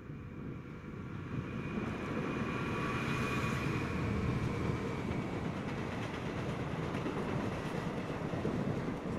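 Class 66 diesel locomotive passing close by, its engine note peaking about three seconds in and dropping slightly in pitch as it goes past. Then the steady rolling noise of loaded container flat wagons running by on the rails.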